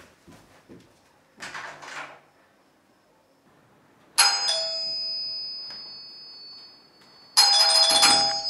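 Doorbell chime ringing about four seconds in and slowly fading, then ringing again, louder and busier, near the end.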